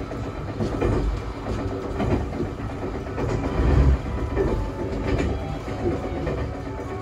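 Romancecar electric limited express running along the line, heard from inside the front observation cabin. A steady rumble of wheels on rail, with scattered sharp clicks over the rail joints and a louder low thump a little past the middle.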